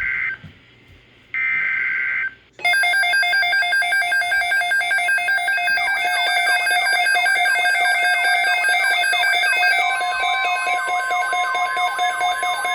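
Emergency Alert System broadcast tones. The digital header data sounds as the tail of one short buzzing burst and then one more, followed from a few seconds in by a loud pulsing alert tone. Falling swept tones are layered on from about six seconds in, and a steady tone joins near ten seconds.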